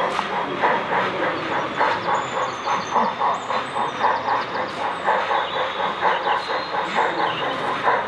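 Steam-locomotive chuffing with an even beat of about four to five chuffs a second, from a sound-fitted model steam locomotive running with a goods train.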